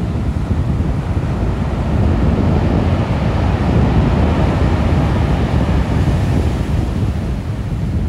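Sea waves washing on a beach, with wind rumbling on the microphone. A wave's hiss swells in the middle and fades again.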